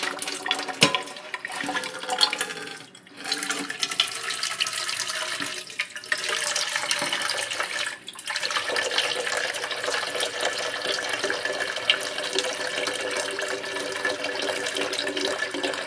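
Filtered tap water running from a PUR faucet-mounted filter into a stainless steel bucket, filling it. The sound drops away briefly twice, about three and eight seconds in.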